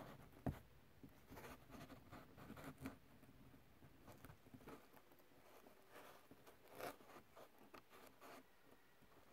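Faint close handling sounds: fingers rustling and scraping a thin wire and a small plastic connector, with scattered light clicks, the sharpest about half a second in.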